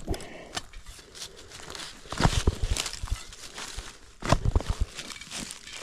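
A shovel digging into the ground: two quick runs of strikes and scrapes, about two seconds in and again past four seconds, with rustling between them.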